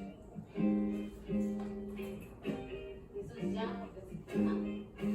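Acoustic guitar music: chords strummed at a steady, unhurried pace, each one ringing on.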